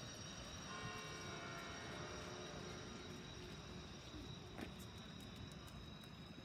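Faint, steady outdoor background noise of a busy public square, with a few faint held tones in the first half.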